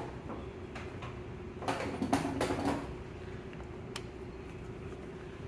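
Metal tool clinking and scraping against the loosened connecting-rod caps on a crankshaft, in a short flurry about two seconds in and then a single tick near four seconds.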